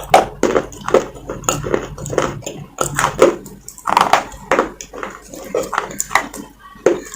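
Close-miked chewing and crunching of a soft baked-clay gullak (clay piggy bank) coated in white paste. The bites and crunches come about twice a second.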